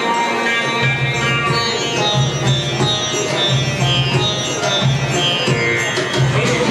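Instrumental music: a plucked-string melody with a sitar-like sound over a low bass note that repeats in short held blocks.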